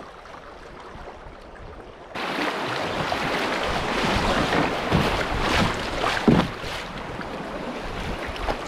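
Water rushing and splashing around a canoe, with wind buffeting the microphone. It is quieter at first, then jumps suddenly louder about two seconds in and carries on with uneven surges.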